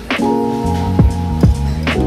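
Background music: a mellow pop song with a steady beat, held chords and deep booming drum hits, with no singing in this stretch.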